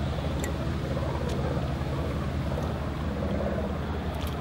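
Steady low hum of a distant engine, with a couple of faint clicks.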